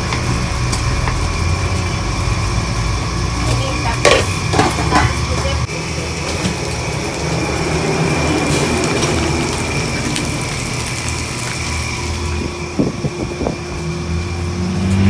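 Busy kitchen noise: a steady low rumble under meat and rice being stir-fried, with a few knocks and scrapes of a wooden spatula against the pan and pot about four to five seconds in and again near the end.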